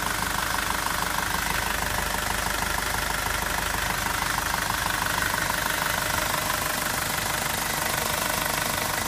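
Nissan YD25 2.5-litre turbo diesel idling steadily with an even diesel clatter, heard close up from the open engine bay.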